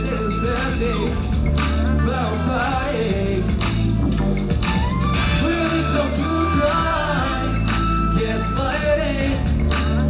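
Upbeat pop dance track with a heavy bass beat and drums, with male voices singing a melody over it.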